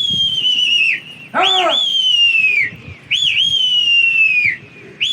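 A pigeon keeper whistling to his flying flock: three long whistles, each starting with a quick upward flick and then sliding down in pitch over about a second. About one and a half seconds in comes a short whooping call.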